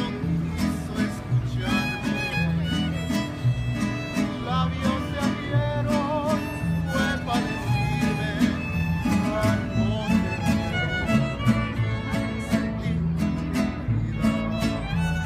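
Mariachi band playing an instrumental passage: violins carry the melody over strummed guitars and a guitarrón bass line.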